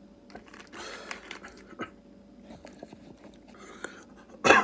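A man breathing out heavily after a long drink, with small mouth and lip clicks, then a short loud throaty burst from him near the end.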